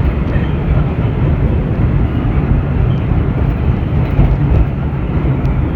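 Vintage 1917 IRT Low-Voltage subway car in motion, heard from inside the car: a steady, loud rumble of wheels on rail with a few faint clicks.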